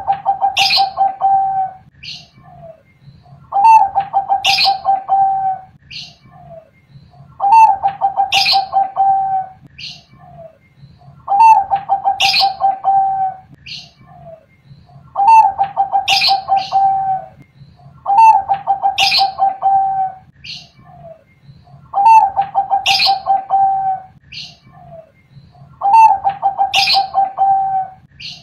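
Bangkok-type zebra dove (perkutut) cooing: the same phrase of rapid rolling notes repeated eight times, about every four seconds.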